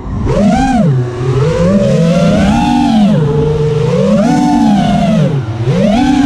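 Brother Hobby Deadpool 2306 brushless motors of an FPV quadcopter whining in flight, the pitch swelling and dropping every second or two with the throttle.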